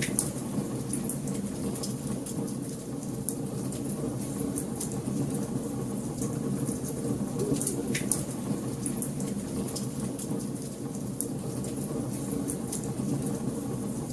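Wood fire crackling in a fireplace: a steady low rumble of flames with scattered sharp pops and snaps, a few louder ones along the way.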